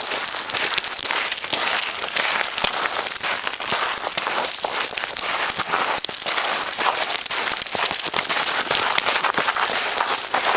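Footsteps crunching on a loose stony path: a dense, continuous crackle of shifting gravel and small rocks underfoot.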